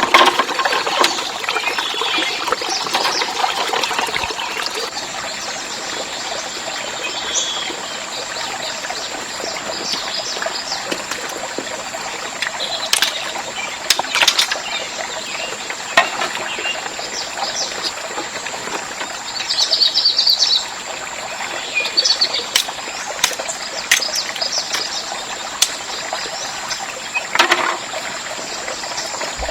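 Outdoor forest ambience: a steady rush of running water with scattered bird chirps and occasional sharp clicks and taps.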